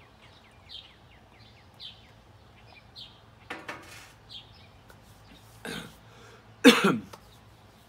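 A man coughing a few times, the loudest cough near the end, with small birds chirping faintly in the first few seconds.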